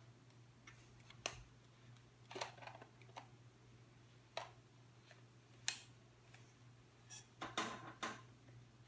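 Irregular small clicks and knocks of a camera body and lens being handled, the busiest run near the end, over a steady low hum.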